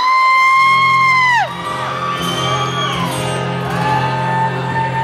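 Concert audience screaming and whooping: one long high-pitched scream held for about a second and a half that drops off at the end, then more shorter whoops, over a low steady tone from the stage.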